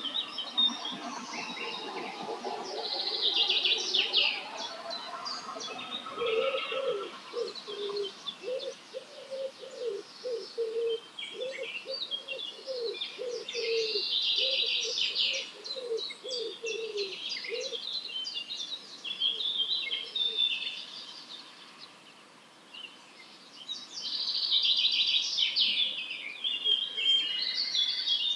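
A mixed dawn chorus of wild songbirds, with bursts of high, fast twittering song coming and going. Through the middle, a low note repeats steadily for about ten seconds, roughly one and a half times a second.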